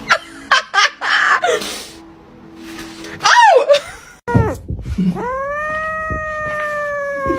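A cat meowing: a short meow about three and a half seconds in, then a long, drawn-out meow that sinks slowly in pitch over the last two seconds. Short knocks come in the first two seconds.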